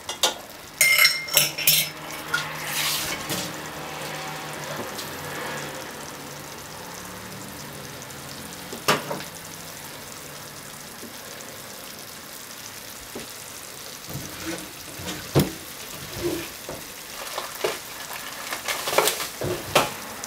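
Sauce with pork and onions sizzling in a frying pan. Sharp clinks and knocks of kitchenware come in a quick cluster at the start, once near the middle, and again several times toward the end.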